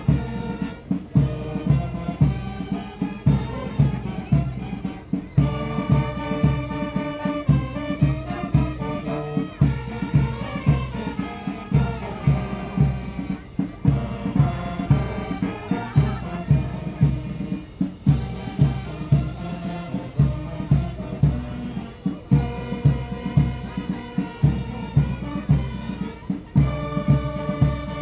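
Music with brass instruments playing sustained melody notes over a steady drum beat.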